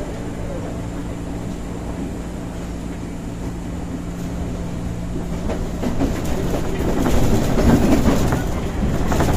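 Former JR 203 series electric commuter train heard from inside a motor car while running: a steady low electrical and motor hum under the floor, with the rumble of the wheels. Clicks from the wheels passing over rail joints grow louder from about six seconds in.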